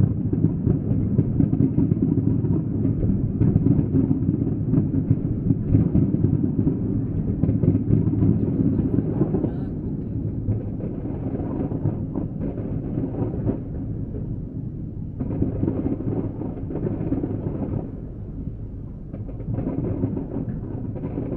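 Fireworks exploding in a dense, continuous barrage of deep booms and rumbling with sharp bangs layered through it. The barrage eases about halfway, then swells again with fresh volleys toward the end.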